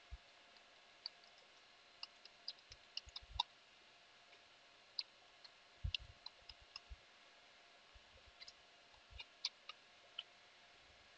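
Computer keyboard being typed on: faint, irregular key clicks coming in short bursts with brief pauses between them.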